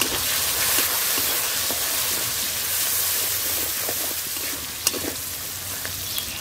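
Chopped onion sizzling in hot oil in a kadai with a tempering of bay leaf and cumin, stirred with a steel spatula that scrapes and ticks against the pan. There is one sharper knock about five seconds in, and the sizzle eases a little near the end.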